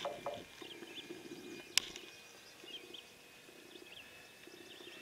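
Faint, steady high-pitched drone of a distant RC model airplane in flight, with a few short chirps and one sharp click a little under two seconds in.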